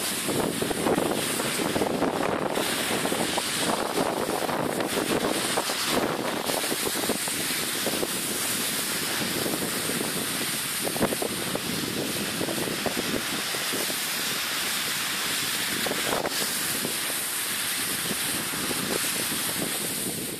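Wind blowing across the camera's microphone, a continuous rushing noise that swells and eases in gusts.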